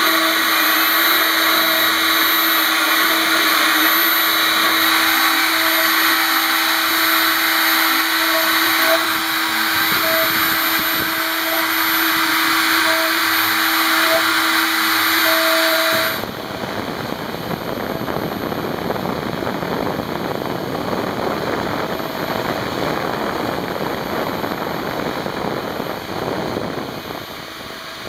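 CNC milling machine spindle running and cutting into an aluminium block, a steady high whine. About sixteen seconds in the sound changes abruptly to a quieter, even rushing noise.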